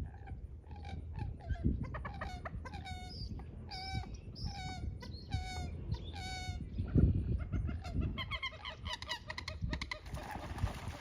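Common moorhen calling: a run of about eight short pitched calls, each under half a second, then a quicker series of short notes about eight seconds in, over a low rumble.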